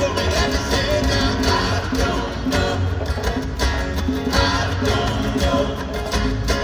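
A live country band playing at concert volume: guitars over a steady beat.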